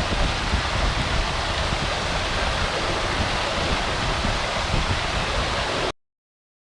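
Steady rush of a waterfall, with some wind rumble on the microphone. It cuts off suddenly near the end.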